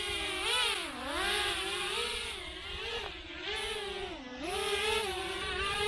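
BetaFPV X-Knight 4-inch racing quadcopter's brushless motors and propellers whining in flight, the pitch dipping and climbing again and again with the throttle, with two deep dips. It runs on its repaired motor, much better now.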